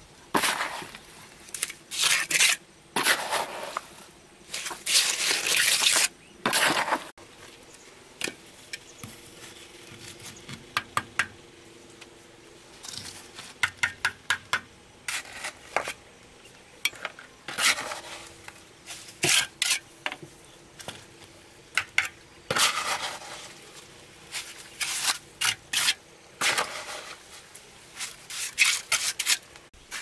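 Irregular knocks, clinks and scrapes of hard objects being handled, in bursts separated by short pauses.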